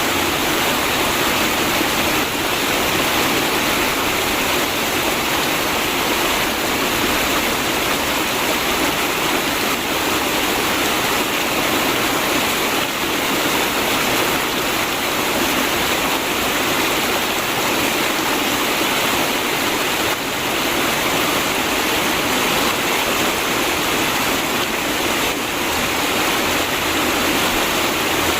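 River water flowing steadily, an even gurgling rush with no breaks or changes.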